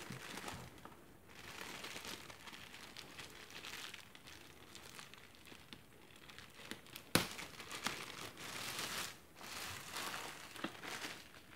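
Thin plastic bag crinkling as hands work a boxed camera out of it, with a single sharp click about seven seconds in.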